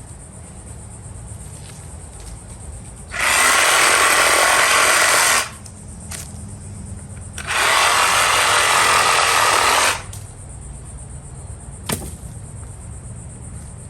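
SunJoe electric wood chipper shredder running in two loud stretches of about two seconds each, a few seconds apart, with a sharp click near the end.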